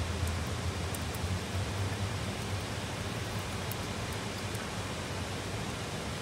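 Heavy rain of a rainstorm falling steadily, an even hiss, with a faint low rumble through the first two or three seconds.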